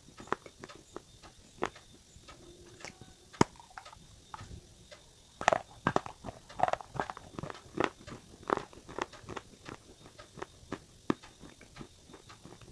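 Close-up crunching of dry multani mitti (Fuller's earth clay) being bitten and chewed: a string of sharp, irregular cracks and snaps, coming thickest a few seconds in.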